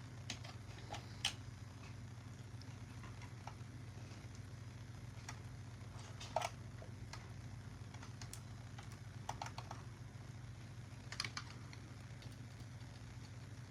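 Light, scattered clicks and taps of small plastic miniatures and packaging being handled and set down, a few at a time with pauses between, the loudest about six seconds in. A low steady hum runs underneath.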